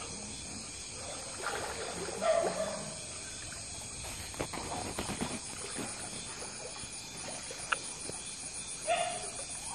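Water sloshing and splashing as a person wades through a shallow river, with a cluster of splashy steps about halfway through. Short animal cries come about two seconds in and again near the end.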